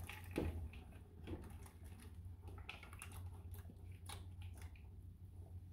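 Faint pattering and light clicks of nixtamal (hominy) kernels sliding from a plastic bowl into a pot of water, over a steady low hum.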